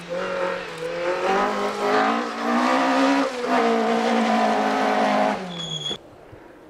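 Rally car engine pulling hard out of a gravel hairpin, its pitch climbing and dropping back several times through gear changes for about five seconds. It then falls away and cuts off suddenly about six seconds in.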